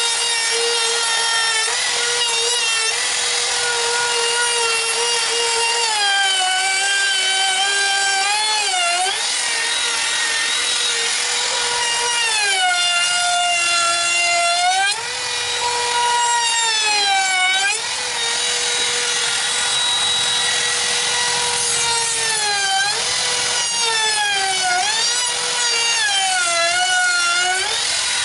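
Handheld trim router rounding over the square edges of a pressure-treated pine beam. The motor's steady high whine sags in pitch each time the bit bites into the wood on a pass, then climbs back when it runs free; there are several such passes, the longest near the middle and near the end.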